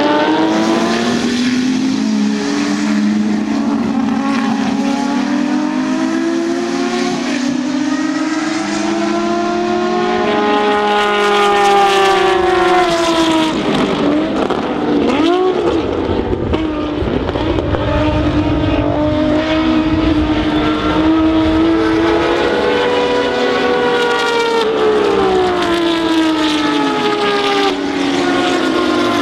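Unmuffled BMW M1 Procar race cars' straight-six engines running hard on track, the pitch climbing through the gears and dropping sharply on lifts and downshifts as the cars go past.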